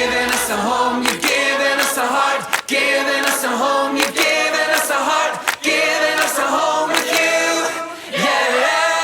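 A group of voices singing a worship song together in harmony, without the band, over sharp percussive beats roughly once a second.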